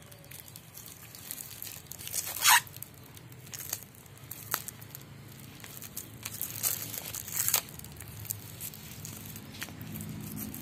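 Thin plastic grafting tape crinkling and crackling as it is stretched and wrapped around an adenium graft union, with a sharper crackle about two and a half seconds in and scattered smaller ones after.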